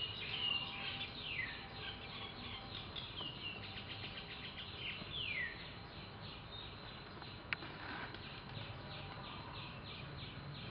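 Birds chirping: a rapid, steady series of short high chirps that fall in pitch, about three or four a second, with a few longer falling calls near the start and about five seconds in. A single sharp click about seven and a half seconds in.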